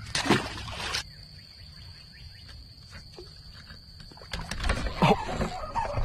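Rustling of weeds and clothing as an angler pushes through bankside brush and handles a spinning rod. Bursts of rustling come in the first second and again near the end, with a quieter stretch between where a faint steady high-pitched tone is heard.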